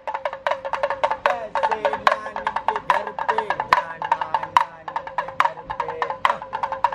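A damru pellet drum rattled in a fast, uneven run of sharp strikes, several a second, each with a short ringing pitch: the drumming that accompanies a street monkey show.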